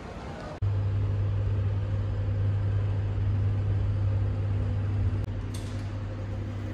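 Steady low hum inside an elevator car, easing slightly about five seconds in, with a few faint clicks as the sliding glass doors work.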